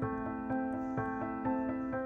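Background music: soft keyboard chords, the notes changing about every half second over a gentle low pulse.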